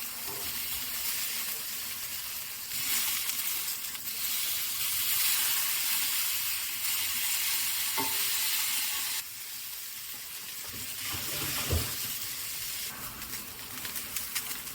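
Food sizzling in olive oil in a frying pan while being stirred, with a steady hiss that grows louder for a stretch in the middle. A utensil knocks against the pan about 8 seconds in, with a dull thump near 12 seconds.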